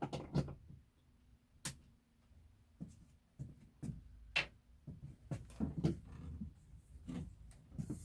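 Irregular clicks and knocks of hard plastic parts being handled and fitted, such as a vacuum cleaner's hose and attachments, with no motor running.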